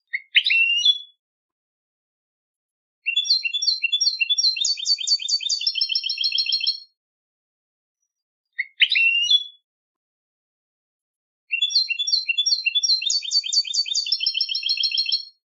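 European goldfinch (jilguero) song: a short rising call, then about two seconds later a phrase of about four seconds of quick repeated notes that speed into a rapid trill. The same call-and-phrase sequence plays twice, with dead silence between phrases, as in an edited song-training recording.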